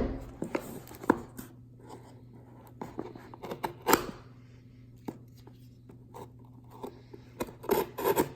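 Handling of a cardboard shipping box and a folding pocketknife: a loud knock at the start, a few sharp clicks, and scraping and rustling near the end as the knife is worked at the box's tape.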